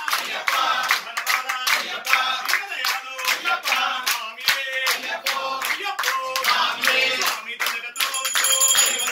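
A group of devotees singing an Ayyappa bhajan to steady rhythmic hand clapping, about three claps a second. A high ringing joins near the end.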